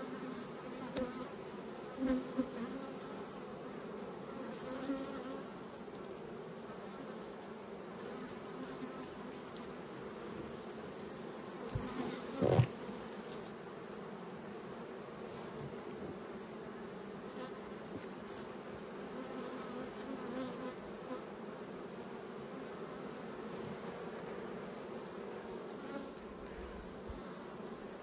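Honeybees of a strong colony buzzing steadily around an opened Langstroth hive while its frames are inspected. A sharp knock comes about twelve seconds in, with a few fainter bumps in the first seconds.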